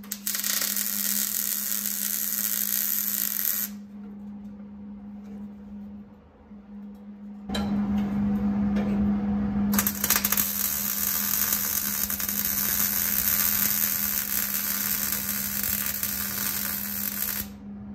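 Arc welding on steel roll-cage mounts: the crackling sizzle of the arc in two long runs. The first stops after a few seconds and the second starts again after a pause of about four seconds. A steady low hum runs underneath.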